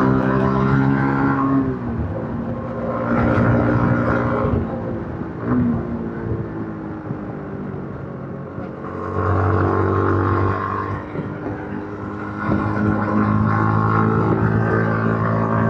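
Yamaha MT-15's 155 cc single-cylinder engine on its stock exhaust, under way: it pulls loudly, eases off for a few seconds about a third of the way in, then pulls again on the throttle twice.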